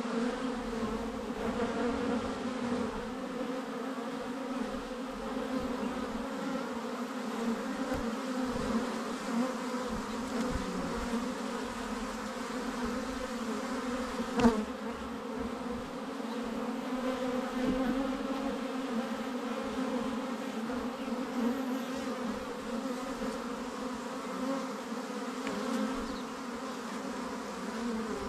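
Many honeybees buzzing in flight at the hive entrance during orientation flights, a steady busy hum of many wings, with a single short click about halfway.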